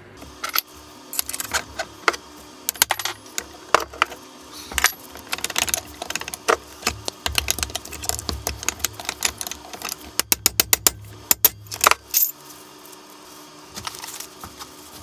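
Metallic clinks and rattles of steel ball bearings and drill parts being handled and turned by hand. The clicks are irregular, with a quick run of them about ten seconds in, and they stop about twelve seconds in.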